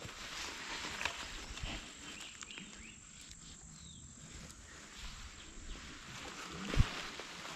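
Insects with a steady high-pitched buzz, over light rustling of plastic bags and fishing gear being handled, with a single dull thump about seven seconds in.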